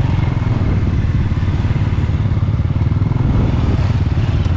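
Motorcycle engine running steadily, with a fast even beat from its firing.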